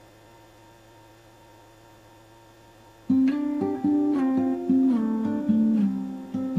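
A faint steady hum, then about three seconds in an acoustic guitar starts playing, plucked notes in a changing melody.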